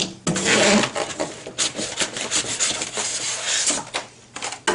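Styrofoam packing pieces rubbing and scraping against the cardboard walls of a TV box as they are pulled out, a quick run of uneven scrapes.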